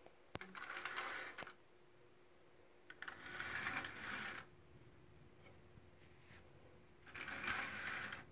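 Plastic-brick Panther tank model's tracks and road wheels rattling as it is pushed across a table by hand, in three short spells of about a second each.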